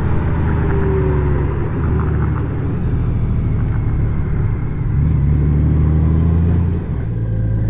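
Honda Gold Wing motorcycle running at road speed: a low, steady engine drone with wind and road noise, growing louder for a couple of seconds about five seconds in.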